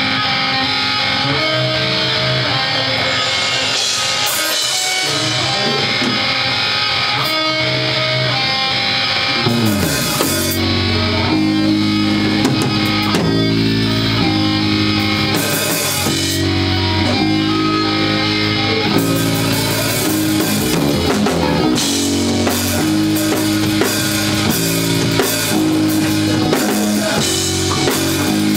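Live rock band playing: electric guitar alone at first, then bass guitar sliding down and coming in with the drum kit about ten seconds in, with the drums and cymbals busier in the second half.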